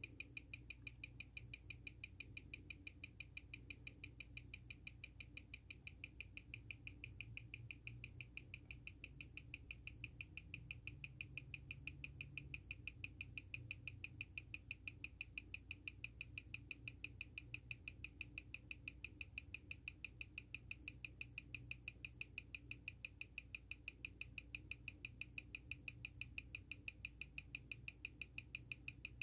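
Seiko SARB035's 6R15 automatic movement ticking steadily at 21,600 beats per hour, six quick, even ticks a second, as a timegrapher listens to it. In this position the timegrapher reads the beat as running a few seconds a day slow.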